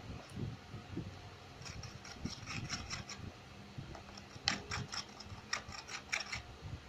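Clear gel-glue slime being stirred in a container after more laundry-detergent activator is added, while it is still sticky. It gives two bouts of quick scraping and sticky clicking, the second louder.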